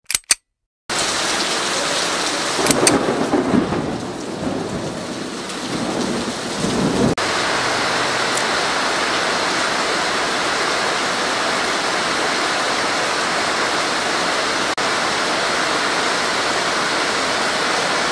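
Steady rain, starting abruptly about a second in, with a low rumble of thunder a few seconds in that dies away by about the seventh second.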